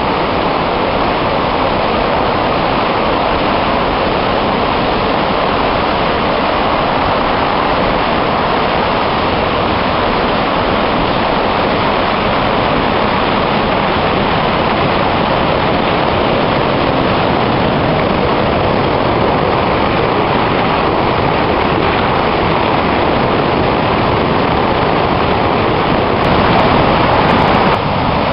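Loud, steady rush of the River Sid in flood: fast brown floodwater surging over its banks.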